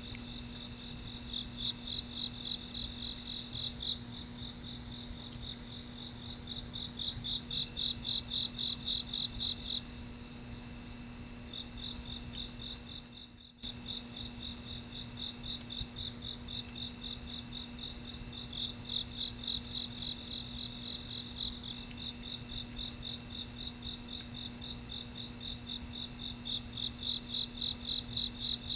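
Night chorus of insects, crickets among them: one continuous high trill with a rhythmic pulsing chirp below it that swells and fades. The sound drops out briefly a little past the middle.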